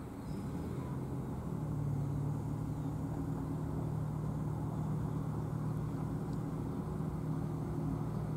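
Low, steady drone of diesel locomotive engines approaching a grade crossing, its pitch holding steady and growing a little louder a couple of seconds in.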